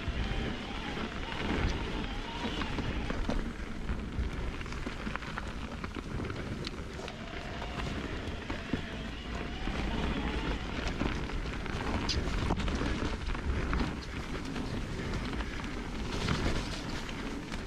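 Mountain bike riding down a dirt singletrack: steady tyre rumble over the packed dirt with frequent small knocks and rattles from the bike as it rolls over roots and stones.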